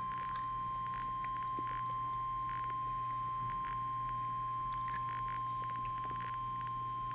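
NOAA Weather Radio warning alarm tone: a single steady, unwavering high beep near 1 kHz, heard over a radio with a low hum and faint static crackles behind it. The tone signals that a severe weather alert message follows.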